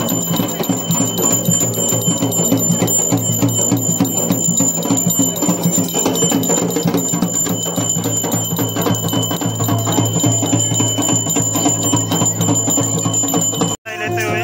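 Music with a fast, steady beat over a sustained low drone; it cuts out abruptly near the end.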